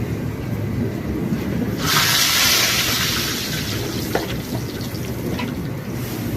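Food sizzling as it hits a hot frying pan: a loud hiss starts suddenly about two seconds in and slowly dies down.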